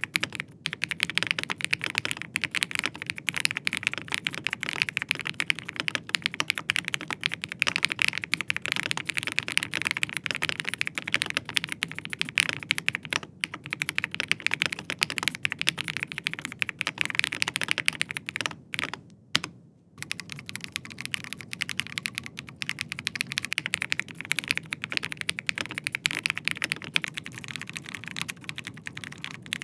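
Fast, continuous typing on mechanical keyboards: first the GeekBoy keyboard, then, after a short break about two-thirds of the way through, a Dark Project ALU87A with G3ms Zircon Speed switches, which sounds a little quieter and thinner. Near the end it switches to an ALU87A with G3ms Sapphire switches.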